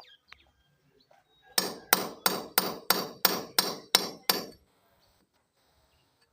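A hammer striking a chisel about nine times in quick, even succession, roughly three blows a second, chiselling out a channel so a washing machine drainage pipe can pass beneath.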